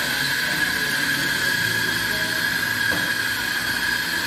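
Electric espresso grinder grinding coffee beans into a portafilter: a steady whirring grind with a high tone.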